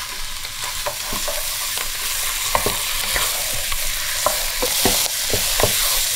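Raw meat chunks sizzling as they go into hot oil and frying onions in a pot, the sizzle growing louder after about two seconds. A wooden spoon knocks against the pot again and again as it pushes the meat in and stirs.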